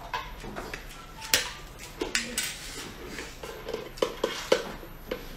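Scattered clicks and knocks of tableware being handled: glass jars of preserved seafood knocking against a serving tray as they are tipped out, along with shells being peeled by hand. The knocks come irregularly, with a cluster of them about four seconds in.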